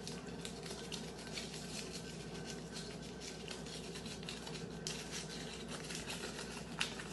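A small folded slip of paper being unfolded and handled: faint, irregular crinkling and rustling, over a low steady hum.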